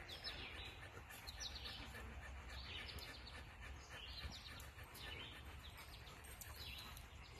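Faint outdoor ambience: a songbird singing short, high phrases about every second and a half, over a steady low rumble.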